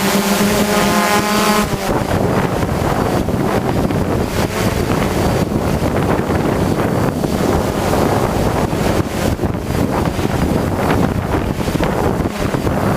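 Strong wind buffeting the microphone in gusts. For the first second and a half a hexacopter's motors hum on one steady pitch, then the wind takes over.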